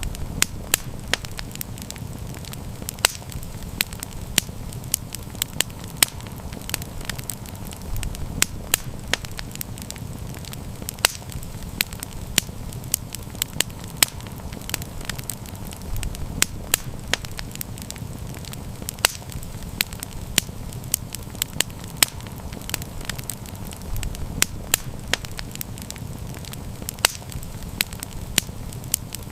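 Campfire crackling: frequent irregular sharp pops and snaps over a steady low rumble of the burning fire.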